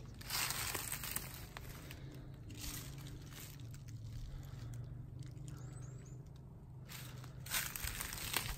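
Footsteps crunching through dry leaf litter on a forest floor, a few irregular steps with quieter pauses between them.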